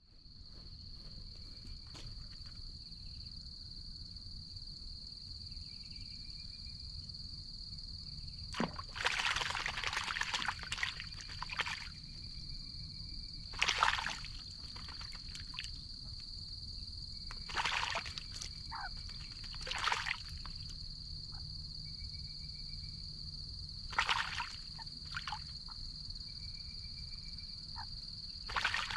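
Australian magpie bathing in a birdbath: short bursts of splashing water, about six of them, the first and longest lasting a couple of seconds. A steady high-pitched whine runs underneath throughout.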